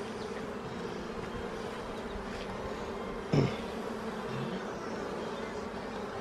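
Steady buzzing hum of a honey bee colony in an opened hive, calm rather than agitated. A brief louder burst a little past halfway through.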